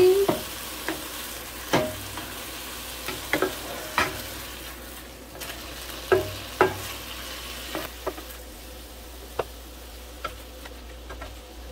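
Chicken pieces sizzling as they fry in a nonstick pan, while a plastic spatula turns them over, with irregular sharp taps and scrapes of the spatula against the pan.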